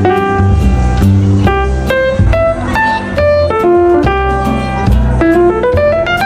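Background music: a piano-led jazzy instrumental with bass and a steady beat.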